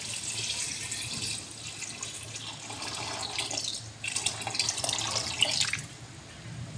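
Water poured from a jug into a metal pot of soaked red kidney beans, splashing and bubbling as it fills, stopping near the end.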